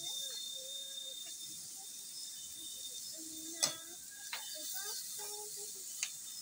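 Sliced beef and garlic sizzling in a wok on a portable gas stove, a steady high hiss, with a metal spatula clicking and scraping against the pan three times, loudest a little past halfway.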